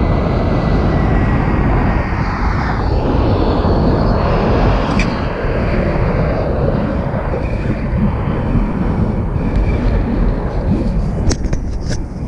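Wind buffeting a head-mounted action camera's microphone during a parachute descent under a round military canopy, a steady, dense rush, with a few sharp clicks near the end.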